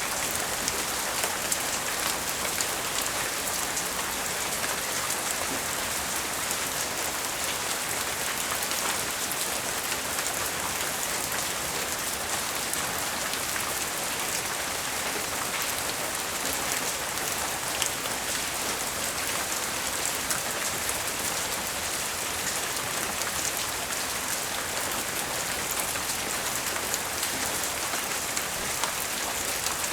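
Steady light rain falling on surfaces: an even hiss thick with small drop ticks, during a tropical storm.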